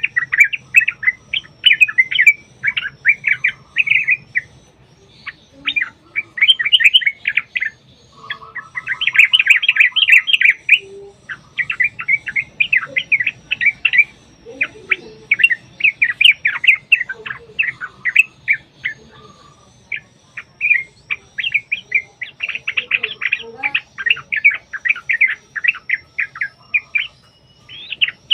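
Yellow-vented bulbul singing fast, bubbling, chattering phrases in quick succession, with short pauses between them. This is the long, rapid trucukan song.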